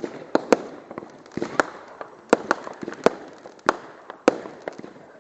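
Consumer fireworks going off in quick succession: a string of sharp bangs, about two a second, with crackling and echoing tails between them.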